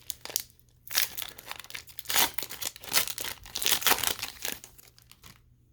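A foil Pokémon booster pack being torn open and crinkled: a run of sharp crackles, loudest in the first four seconds, then fading.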